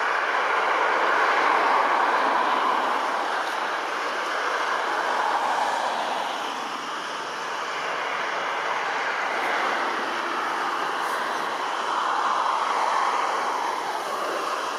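Jet airliner engines heard from across the airfield: a steady rushing roar that slowly swells and eases, loudest about two seconds in and again near the end.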